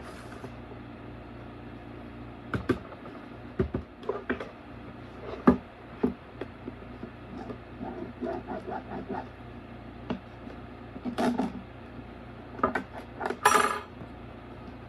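Plastic shrink-wrap on a cardboard card box being pierced with a pen and peeled off: scattered taps and clicks on a wooden table and plastic crinkles, with a longer tearing rip about thirteen and a half seconds in, over a steady low hum.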